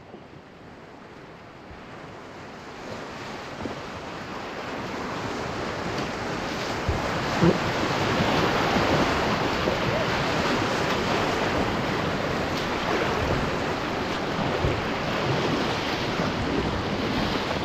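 Whitewater rapids rushing around a solo canoe, growing steadily louder over the first several seconds as the boat runs into the rapid, then holding at a loud, even rush. A few brief sharper splashes stand out, the strongest about seven seconds in.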